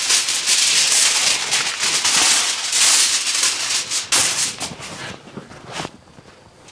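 Ribs sizzling on the hot wire racks of an offset smoker: a dense crackling hiss that dies down about five seconds in.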